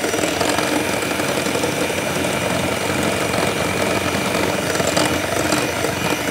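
Electric mixer running steadily, beating butter, sugar and egg into a brownie batter.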